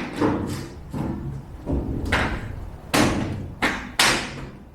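Interlocking plastic floor tiles being knocked and pressed together: a series of about seven irregular thuds and knocks, the loudest three coming close together in the second half.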